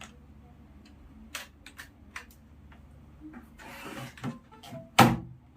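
Light clicks and knocks from handling a Lenovo wired USB keyboard and plugging in its cable, with a short rustle about three and a half seconds in and a sharp, louder click about five seconds in.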